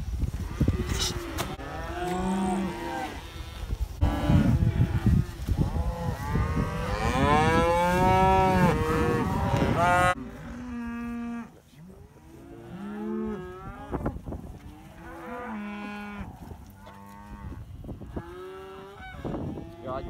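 A herd of black Angus cattle mooing over and over, several animals calling at different pitches, some calls long and curving up and down. A rushing noise lies under the first half and stops abruptly about halfway through.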